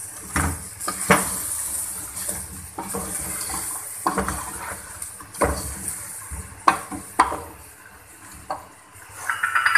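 Metal spoon scraping and knocking against a metal cooking pot as frying chicken is stirred, the strokes coming irregularly every second or so over a light, steady sizzle.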